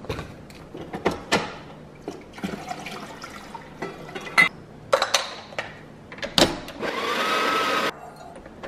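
Knocks and clatter of bottles, a steel milk pitcher and cups being handled on a kitchen counter, then about a second of steady hissing with a whine from an espresso machine that cuts off abruptly.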